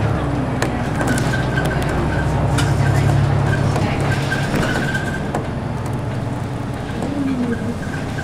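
City bus engine running as the bus drives, heard from inside the cabin, with short clicks and rattles over it. The engine hum eases off about five seconds in.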